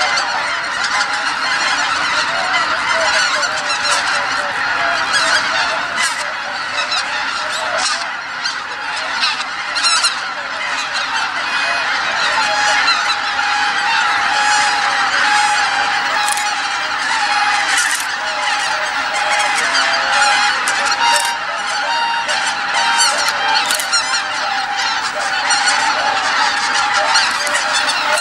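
A huge flock of wild geese honking, a dense, unbroken chorus of many overlapping calls from birds flying up and circling over their roosting lake.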